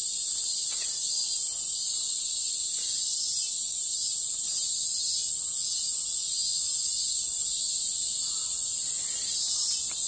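Cicadas buzzing in a steady, high-pitched drone, with a fainter pulsing above it about twice a second.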